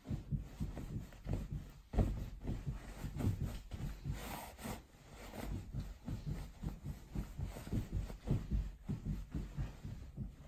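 Sneakered feet stepping and bouncing on a mattress under a thick duvet: a run of soft, low thuds about two to three a second, with the duvet rustling, most around four seconds in.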